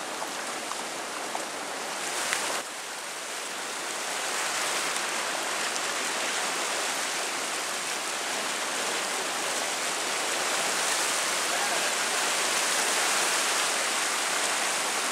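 Steady rushing of a river in flood after heavy rain, the fast, swollen water churning in white-capped waves.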